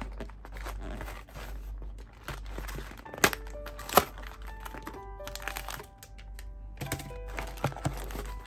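Cardboard coffee box torn open by hand: crinkling and ripping of the paperboard flap and rustling sachets, with sharp snaps about 3 and 4 seconds in. Faint soft background music plays under it.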